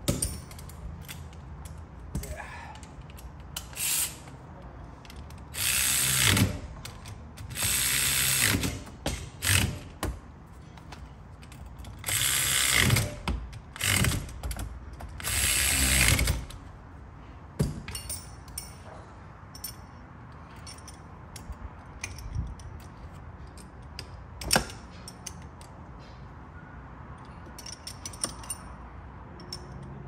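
Cordless ratchet running in short bursts, about six runs in the first half, driving down the bolts of a short-throw shifter. Scattered light clicks of tools and parts follow, with one sharper click in the second half.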